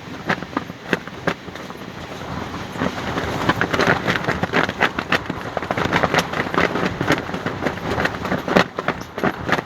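Fabric flapping and snapping hard in strong wind, a rapid irregular run of sharp cracks over a rushing wind noise, growing louder and busier about three seconds in.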